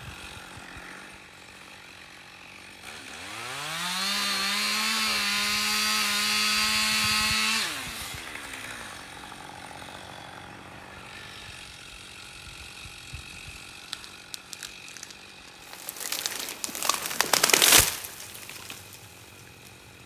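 Two-stroke chainsaw running at idle, revved up to full throttle about three seconds in and held there for some four seconds, then dropped back to idle. Near the end comes a loud crackling crash lasting a second or two.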